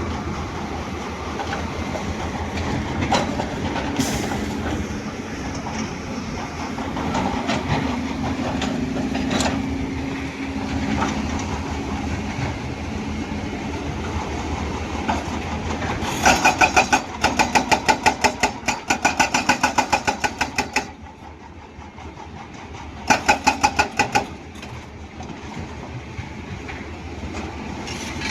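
Hyundai excavator's diesel engine running with a few scattered clanks, then its hydraulic breaker hammer pounding rock in rapid, evenly spaced blows. There is a run of about five seconds past the middle and a shorter run of about a second near the end.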